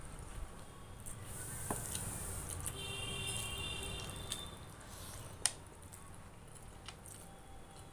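Close-up eating sounds: wet chewing and mouth smacks of rice and curry eaten by hand, with fingers squishing through the rice on the plate. Small clicks throughout, one sharp click about five and a half seconds in, and a faint high tone for about a second and a half near the middle.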